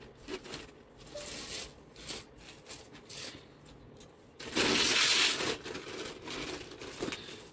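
Thin plastic carrier bag rustling and crinkling as hands dig into it: a run of short rustles, with a louder stretch about a second long midway through.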